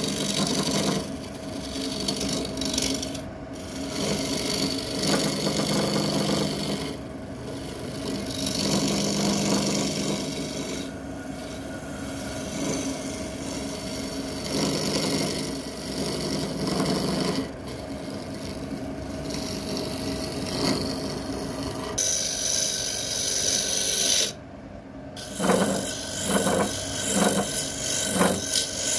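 Wood being worked on a turning lathe: a continuous rasping scrape of tool on wood over the machine's steady hum. Near the end it turns into regular strokes, about two a second.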